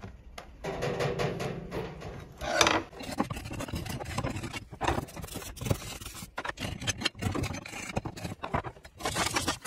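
A flat metal tool scraping and rasping against the cast-iron bore of a Bell & Gossett 100-series circulator pump bracket, cleaning it down for a new seal. The strokes come fast and unevenly and get busier about three seconds in.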